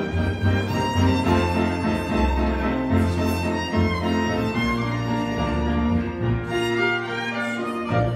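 Live trio of piano, violin and double bass playing, the violin carrying the melody over bass notes that change every half second or so.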